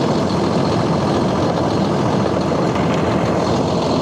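Claas 850 tractor's diesel engine running steadily at idle, close by.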